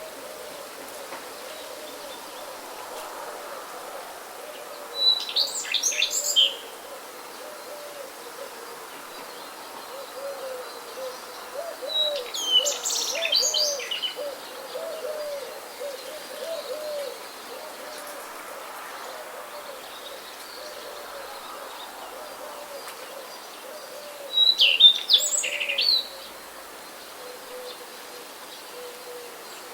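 Wild birds calling: three loud, brief bursts of high-pitched song, about 5, 12 and 25 seconds in, over a continuous series of low, short repeated hooting notes.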